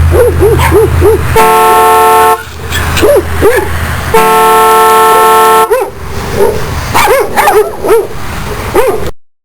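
A car horn fitted to a bicycle sounding two long steady blasts, the first about a second long and the second about a second and a half. A dog barks in quick runs before, between and after the blasts, and the sound cuts off suddenly near the end.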